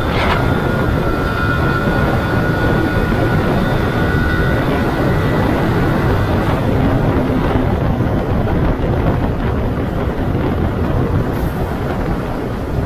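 Yamaha R15 V2's single-cylinder engine running at a steady cruise, heard from the rider's seat under steady wind and road noise.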